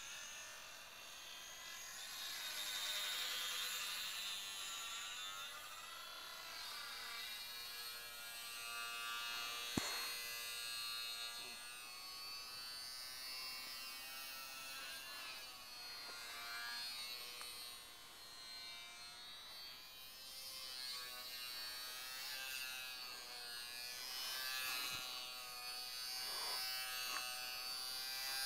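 HobbyZone Champ micro RC plane's small electric motor and propeller buzzing in flight, the pitch wavering up and down throughout. A sharp click about ten seconds in.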